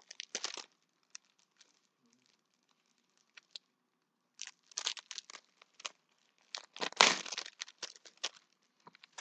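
Packaging being crinkled and torn open by hand in short bouts of rustling, the loudest about seven seconds in.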